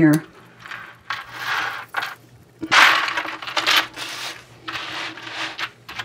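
Heavy metal chain necklace with dangling leaf charms jingling and clinking against itself as it is handled and spread out on a table, in a few rattling bursts.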